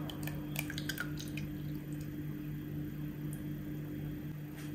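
Thick, creamy pineapple mixture poured from a saucepan into a ceramic mould, with soft drips and splats mostly in the first second or so, over a steady low hum.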